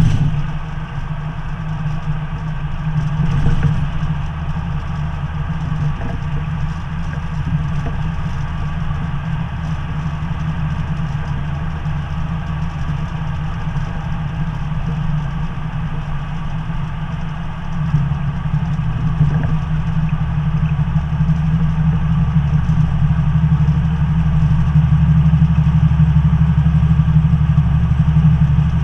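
Semi truck's diesel engine running under way, heard inside the cab: a steady low drone with the hum of road noise. About eighteen seconds in the engine note shifts and grows louder, and stays so.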